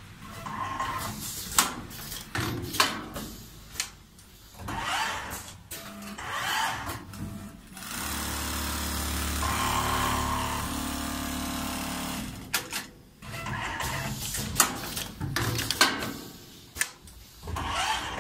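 Computerised industrial sewing machine sewing a bathrobe pocket: a steady run of machine stitching for about four seconds in the middle, with scattered clicks and knocks before and after.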